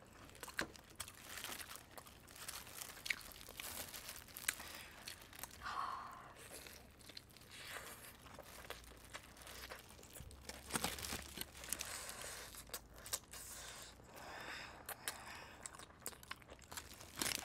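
Faint, scattered rustling and crinkling of disposable plastic gloves and foil, with soft tearing as chicken meat is pulled apart by hand and some chewing.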